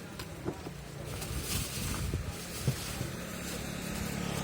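A motor running with a steady low hum that grows louder toward the end, with a few light knocks over it.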